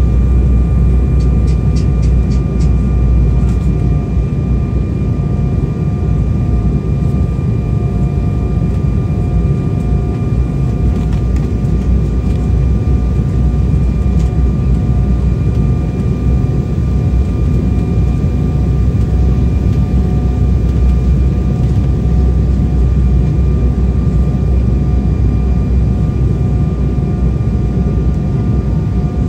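Cabin noise of an Embraer 190 airliner descending on approach: a steady low rumble of airflow with the even whine of its General Electric CF34-10E turbofan engines.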